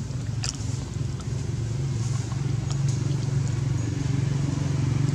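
Steady low engine drone with a fine, even pulse, growing slightly louder, with a faint click about half a second in.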